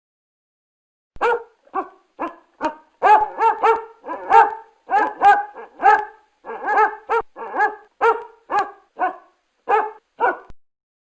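A dog barking in a fast run of short, sharp barks, about two or three a second, starting about a second in and stopping shortly before the end.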